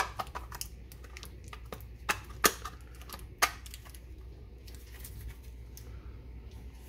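Hard plastic clicking and knocking as the battery pack's clear cell holder and black casing are handled and fitted together: a quick run of sharp clicks over the first few seconds, two of them loudest, then quieter handling.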